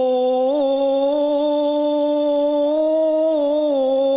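A man's Quran recitation in melodic tajwid style, holding one long note with small ornamental turns, stepping up in pitch and back down near the end, on the verse ending 'yatafakkarūn'.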